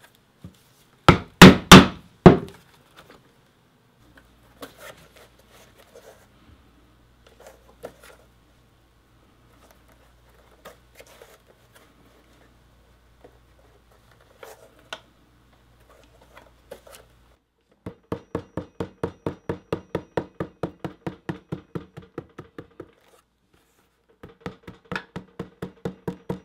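A few loud hammer blows drive a steel stitching chisel through thick vegetable-tanned leather on a granite slab. Faint clicks and rustles of hand stitching follow. Then comes a long run of quick, even hammer taps, about four or five a second, on a metal tool set along the stitched edge, and a second run near the end.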